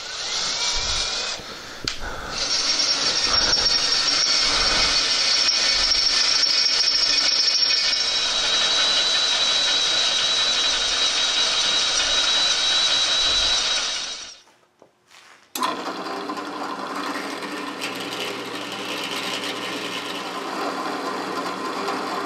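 Cordless drill boring through the steel frame of a riding lawn mower, its oiled bit cutting with a steady high whine for about fourteen seconds, with a short dip about two seconds in. After a brief silence a drill press motor runs steadily, drilling a flat steel bar.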